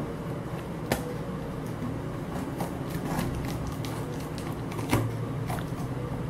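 Cardboard carton being handled by hand while its taped flap is worked open: faint rustles and small knocks, with a sharper tap about a second in and another near five seconds, over a steady low hum.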